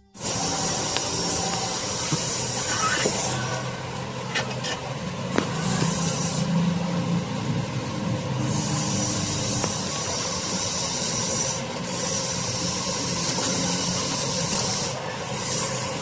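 Straw hand broom sweeping a wooden beehive floor board, its bristles rasping over the wood in repeated strokes, with a steady low hum of Asian honey bees (Apis cerana) underneath.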